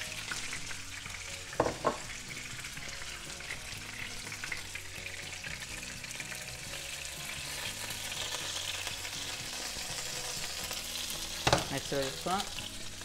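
Basa fillets with olives and lemon zest frying in oil in a nonstick pan, a steady sizzle. A couple of sharp clicks about two seconds in.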